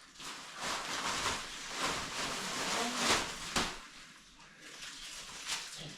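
Rustling and clattering of shower-kit parts and packaging being handled, with a few sharp knocks, the loudest about three seconds in; quieter after about four seconds.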